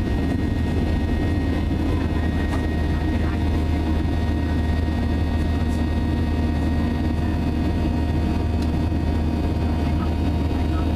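Steady drone of a Boeing 737 jet airliner's turbofan engines heard inside the cabin during the climb after takeoff: a deep, even rumble with a few steady whining tones above it and no change in level.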